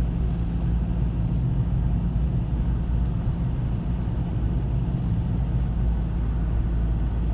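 Car driving steadily on a gravel road, heard from inside the cabin: an even low rumble of engine and tyres on gravel.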